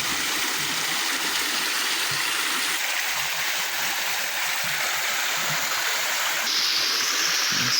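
River water flowing steadily, an even rushing hiss that gets a little sharper about three-quarters of the way through.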